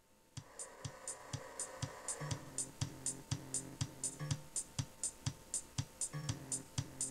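Background music with a steady electronic drum beat, about two thumps a second with high hi-hat ticks, over a bass line; it comes in about half a second in.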